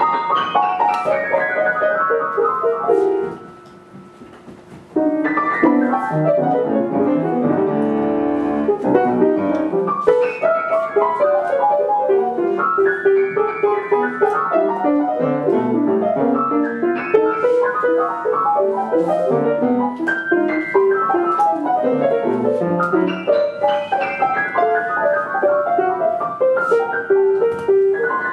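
Solo piano music with many quick notes. It breaks off for about two seconds a little over three seconds in, then resumes.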